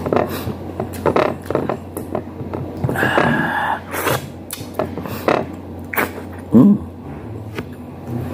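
Close-up eating sounds of a man eating chicken and rice with his hands: wet chewing, lip-smacking and finger-sucking in many short clicks. A short, low sound from his voice comes about six and a half seconds in, the loudest moment.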